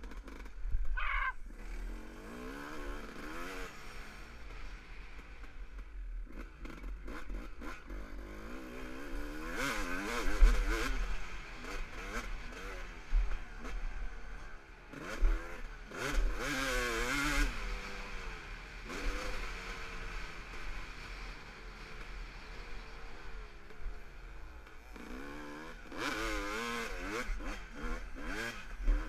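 Dirt bike engine revving up and down again and again as the rider rolls the throttle and shifts through the gears, with wind rumbling on the microphone. A few sharp thumps come through near the middle and at the end.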